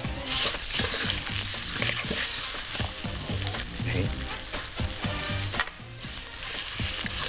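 Browned vermicelli with chopped celery and onion frying in a pot, sizzling steadily while being stirred with a wooden spoon. The sizzle dips briefly about six seconds in.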